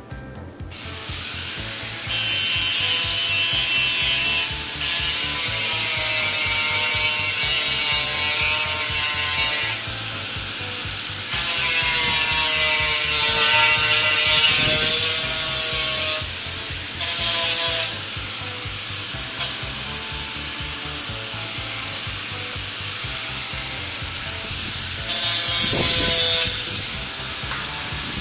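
Power tool grinding metal, a steady high whine over harsh noise.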